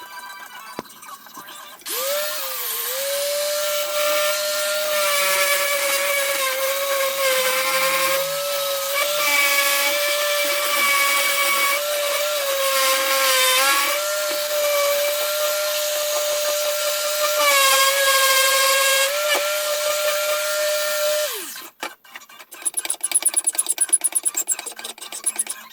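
Handheld power tool motor running at speed with a steady high whine, its pitch sagging slightly at moments as it is pressed into the work, for about twenty seconds before stopping. Rapid, rhythmic scraping strokes follow near the end.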